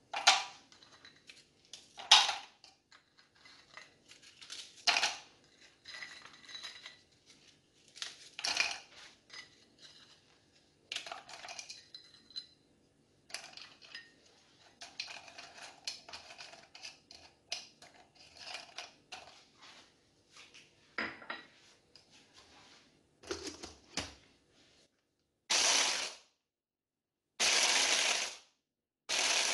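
Crisp tea biscuits snapped by hand and dropped into a plastic chopper bowl: a string of sharp cracks and clatters with pauses between. From about 25 seconds in, a Moulinex 1000 W hand blender's chopper attachment runs in three short pulses, each about a second long, grinding the biscuits.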